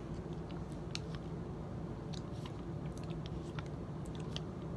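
Small wet clicks and smacks of someone licking chocolate pudding off a pudding cup's lid, scattered over a steady low background hum.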